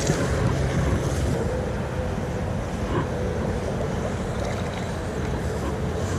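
Steady rumble of wind buffeting the microphone outdoors by open water.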